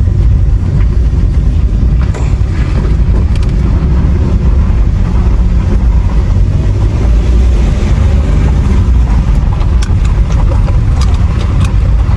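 A car driving along, with a steady low engine and road rumble.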